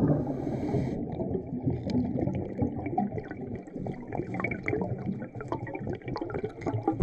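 Underwater sound picked up through a GoPro's housing: a muffled low rumble of moving river water, with many faint scattered clicks and crackles.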